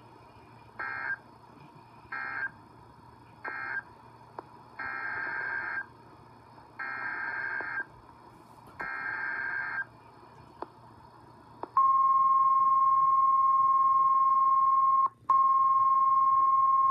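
NOAA Weather Radio Emergency Alert System signalling. First three short buzzy digital data bursts, the end-of-message code closing the previous warning. Then three longer bursts, the SAME header of the next alert. About 12 s in, the loud steady 1050 Hz warning alarm tone begins; it drops out for a moment about 15 s in, then carries on.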